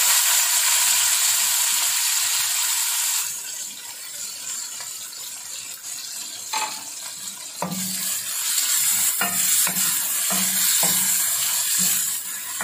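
Freshly added sliced onions sizzling loudly in hot oil in a metal pot; the sizzle drops off after about three seconds. A wooden spoon then stirs them, scraping and knocking against the pot every second or so.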